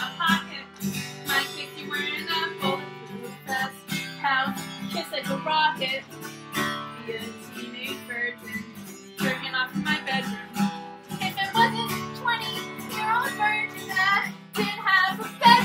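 Acoustic guitar strummed in a rhythmic folk-punk song, with a high voice singing along in bending phrases.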